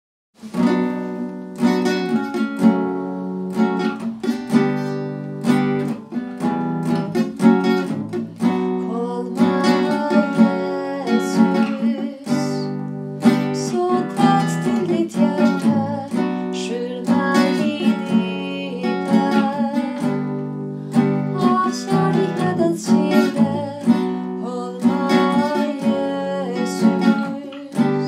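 Classical nylon-string guitar playing plucked chords, starting about half a second in, with a woman singing a slow Norwegian worship song over it.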